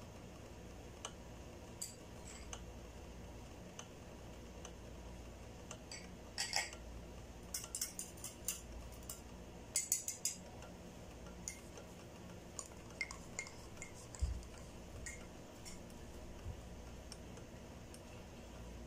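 Pot of palm sugar syrup with pandan leaves heating on the stove: faint, scattered ticks and small clicks over a low steady hum, with a denser cluster of crackling clicks about six to ten seconds in, as the syrup starts to come up to a simmer.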